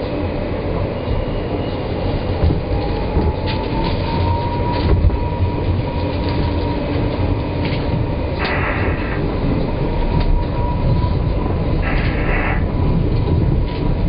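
New York City subway train running across the Williamsburg Bridge: a heavy, steady rumble with clicks from the wheels over the rail joints. A few seconds in, a motor whine rises in pitch and then holds steady. Near the end there are two short bursts of hiss.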